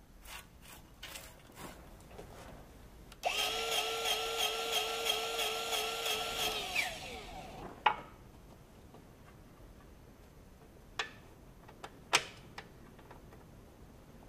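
Battery power tool running for about three and a half seconds as it tightens a bolt on the spreader's chain flails, then winding down. A few sharp metallic clicks and knocks before and after it.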